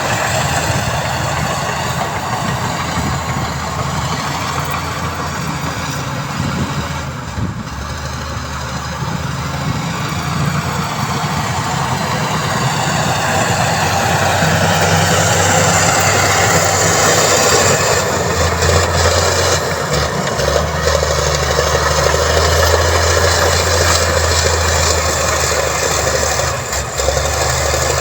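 Heavy construction machine's engine running steadily, with a low drone and a wide rushing noise, growing louder about halfway through.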